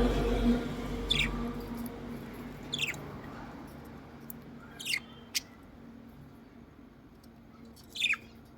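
A small bird chirping: about five short, high chirps a second or more apart, over a low hum that fades away in the first couple of seconds.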